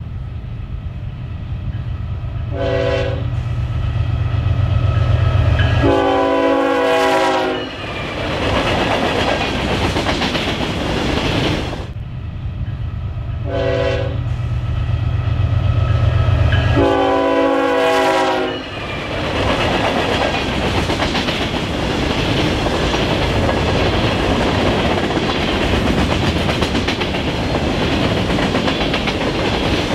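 Norfolk Southern diesel freight locomotive passing with its engine rumbling, its multi-note air horn sounding a short blast and then a longer one, the pair heard twice. Then the empty covered hopper cars of a grain train roll by on the rails with a steady wheel noise.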